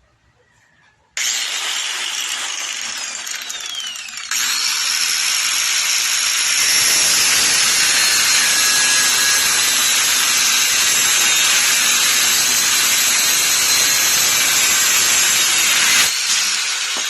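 Skil 850 W 5-inch angle grinder starting up about a second in and running free. About four seconds in, its abrasive cut-off disc bites into a 16 mm steel round bar with a loud, steady grinding hiss that lasts about twelve seconds. Near the end the disc cuts through and the grinder runs free again.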